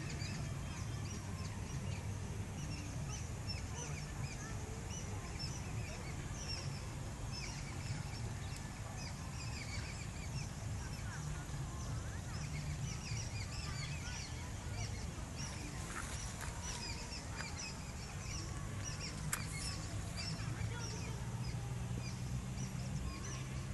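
Many short, high chirping calls, like a flock of birds, going on continuously over a low steady hum.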